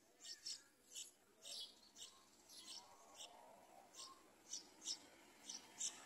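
Nestlings begging from the nest: about a dozen short, thin, high-pitched chirps at irregular intervals, with mouths gaping for food.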